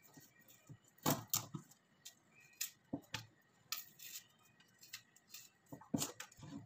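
Kitchen knife clicking and tapping as a red onion is peeled and trimmed: light, sharp clicks spread out, a small cluster about a second in and another near the end.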